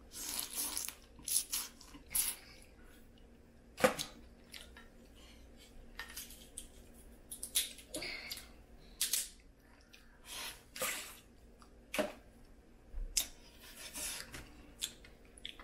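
Cajun-style crawfish being cracked, peeled by hand and eaten: scattered sharp cracks and clicks of shell, with short noisy eating sounds in between.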